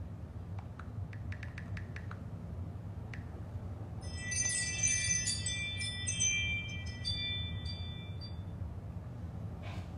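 Phone app notification chime: a bright jingle of several high tones, starting about four seconds in and lasting about four seconds. It is preceded by a quick run of light ticks about a second in, with a low steady hum underneath.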